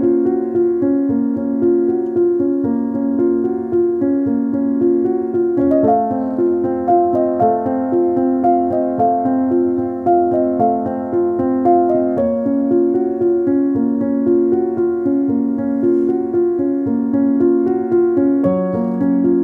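Background piano music: a steady flow of held notes changing about every half second, with no voices.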